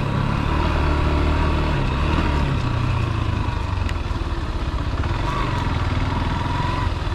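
Vehicle engine running steadily at low revs as it is driven slowly.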